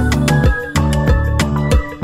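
Background music with a steady beat and sustained pitched notes.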